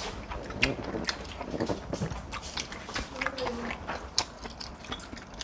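Close-up chewing and biting of food, a run of small irregular mouth clicks.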